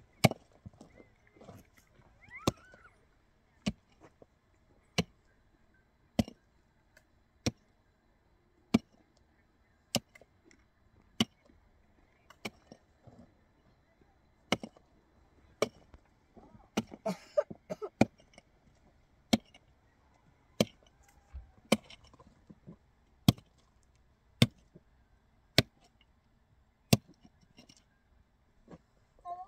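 A small hand pick striking rocky, stony soil: about twenty-odd steady, evenly spaced blows, roughly one every second and a quarter.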